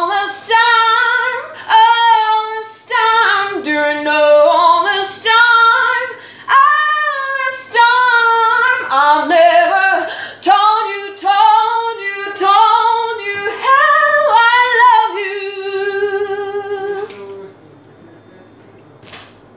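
A woman singing solo and unaccompanied in a small room, in a string of sung phrases. Near the end she holds one long note with vibrato, then stops.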